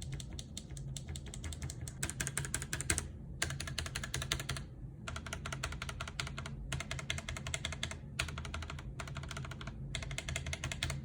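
Typing on a mechanical keyboard fitted with Gateron Yellow linear switches that have been lubed with Krytox 205g0 and fitted with switch films. The keystrokes come in quick runs broken by a handful of short pauses.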